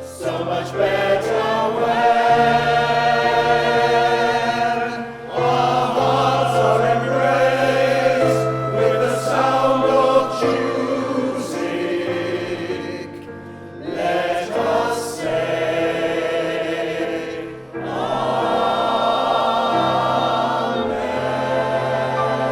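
Amateur choir singing held chords in phrases, over a steady low instrumental accompaniment, with short breaks between phrases.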